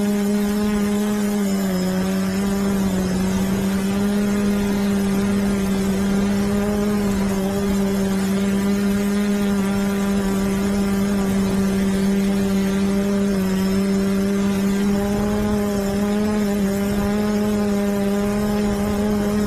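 Quadcopter's motors and propellers humming steadily, heard up close from a camera mounted on the craft itself. The pitch dips slightly about two seconds in and again about two-thirds of the way through.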